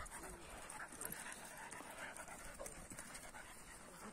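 Two dogs play-fighting, growling faintly.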